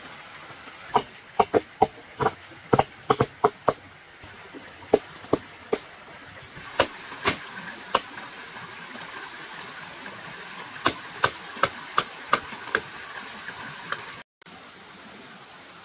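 Tools striking wood or bamboo in an irregular series of sharp knocks, coming in quick runs of several blows, over a steady hiss.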